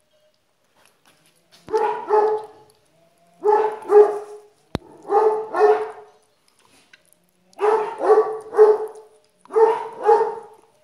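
Puppy barking in quick runs of two or three short barks, five runs in all.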